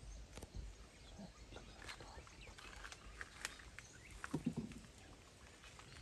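Faint scattered snaps and rustles of twigs and brush, with a short cluster of dull knocks about four and a half seconds in.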